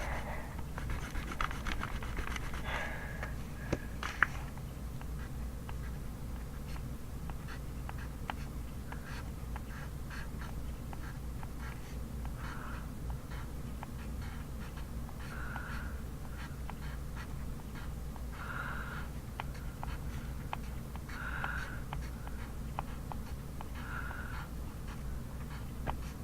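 Faint pencil writing on paper, light scratches and taps, over a steady low hum. A short soft sound recurs about every three seconds.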